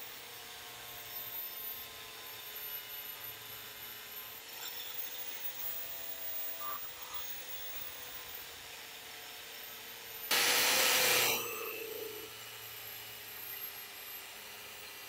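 DeWalt angle grinder with an Osborne cut-off wheel cutting through a locomotive steam pipe: a steady motor whine that wavers slightly in pitch as the wheel loads up. About ten seconds in comes a louder, harsh burst of cutting noise lasting about a second.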